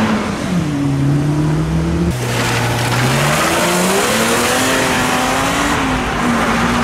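Car engines accelerating away, the pitch climbing and dropping as they rev and change gear, with a sudden louder surge about two seconds in.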